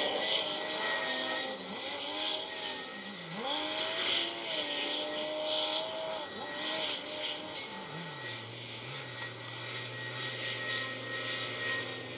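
Heavy diesel machinery at work: a Kawasaki 90ZV wheel loader and a grab crane handling sand, their engine pitch rising and falling again and again as they rev. About eight seconds in, a steady low engine hum joins.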